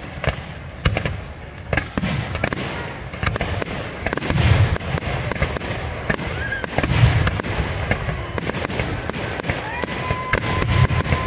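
Aerial fireworks display: repeated bangs of shells bursting, with heavier thumps about four and a half and seven seconds in and crackling in between. A steady high tone joins near the end.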